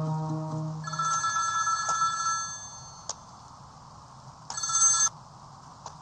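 Electronic telephone ringing: one ring of about two seconds, then after a pause a second ring that cuts off abruptly after half a second.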